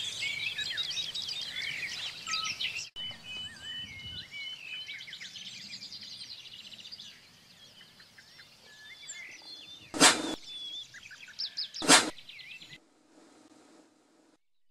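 Small dog sneezing twice, two short sharp bursts about two seconds apart near the end, over birds singing.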